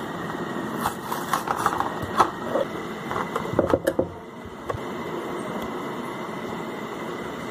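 Plastic blister pack being peeled from its card backing and handled, crinkling and crackling in quick irregular clicks for the first few seconds, then only soft handling.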